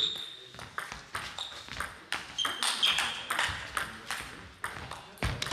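Table tennis rally: the plastic ball clicks off the rackets and the table again and again, some hits ringing with a short high ping. A heavy low thud comes near the end.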